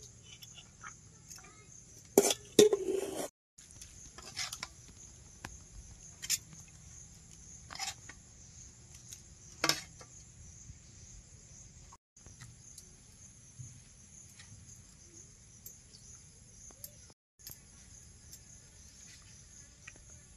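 Steady high-pitched insect chirring, with scattered sharp clinks and knocks of steel plates being handled. The loudest is a short clatter about two seconds in.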